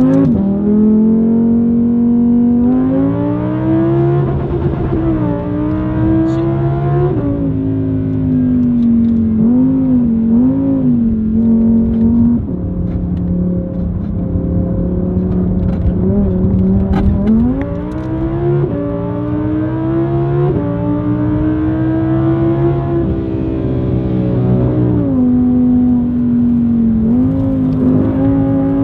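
Audi R8's 5.2-litre V10 with an aftermarket ASG valve exhaust, heard from inside the cabin while driven hard. The revs climb under throttle and drop sharply several times with lifts and gear changes.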